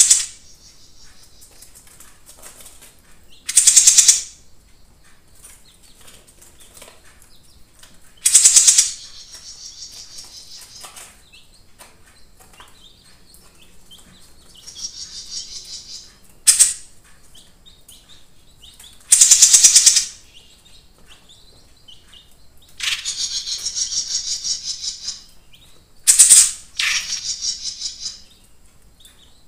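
Caged jenggot mini songbird singing: loud, very high-pitched rapid trills of about a second each, repeated every few seconds, with softer, longer twittering phrases in between.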